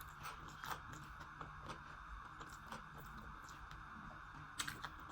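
Faint chewing and eating with scattered soft mouth clicks, one a little louder near the end, over a steady background hiss.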